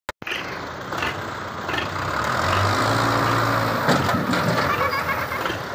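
Tractor diesel engine labouring under heavy load, pulling a fully loaded trolley hard enough that its front wheels rear up; the engine note strengthens about two seconds in. A sharp knock comes near four seconds in.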